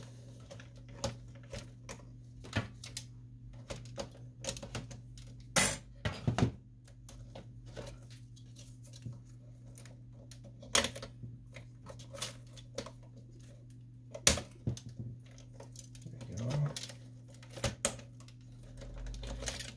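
Plastic parts and cable clamps of a partly disassembled Canon Pixma MG6220 inkjet printer clicking and knocking as they are handled and the carriage cords are freed. The clicks are irregular, with a few louder snaps about five and a half, eleven and fourteen seconds in, over a steady low hum.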